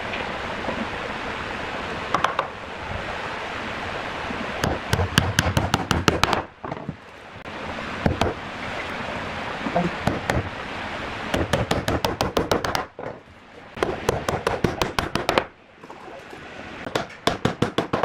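Four bursts of rapid, evenly spaced knocking, about eight to ten knocks a second, each burst lasting one to two seconds, over a steady noise.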